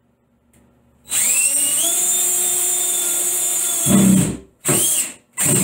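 DeWalt 20V MAX cordless drill driving a drywall screw through a shower-rod bracket into a wall stud: the motor spins up about a second in and runs steadily for about three seconds, loading down near the end as the screw tightens, then two short trigger pulses snug it home.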